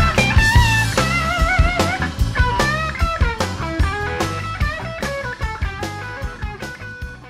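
Soundtrack music: a bluesy electric-guitar lead with bent, wavering notes over a steady drum beat, fading out toward the end.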